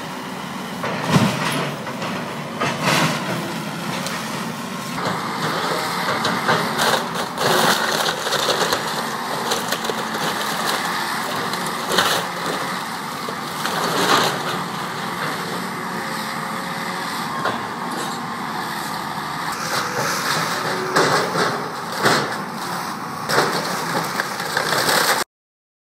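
John Deere 892E LC tracked excavator running while its bucket tears into a wood-frame house: a steady machine noise with repeated cracks and crashes of splintering timber and falling debris. The sound cuts off suddenly near the end.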